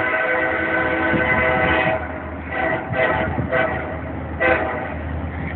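Nathan K5LA five-chime air horn on a diesel freight locomotive: one long blast of about two seconds, then several short toots, over the low rumble of the passing train.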